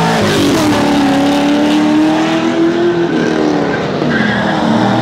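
Car engine under hard throttle as it drives past. Its pitch climbs slowly, falls about three seconds in, then climbs again.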